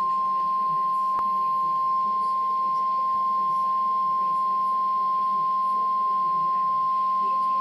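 Weather-radio emergency alert tone: one long, steady, single-pitch beep, the warning alarm tone that comes before a flood warning is read. A faint low hum runs beneath it.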